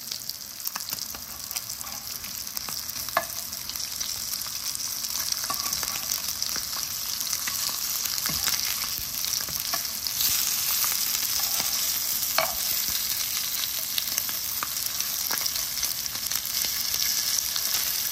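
Breakfast sausage patties sizzling steadily in hot fat in a frying pan, with a few light clicks of a metal slotted spatula against the pan as the patties are turned.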